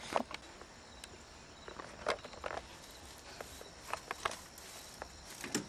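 Faint outdoor ambience: a steady high insect hum with scattered soft clicks and taps.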